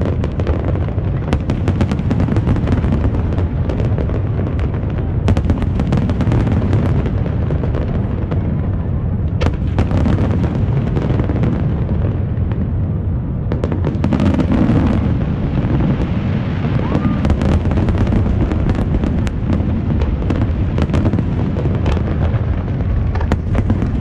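Aerial fireworks display going off: a dense, continuous low rumble of shell bursts with many sharp cracks throughout.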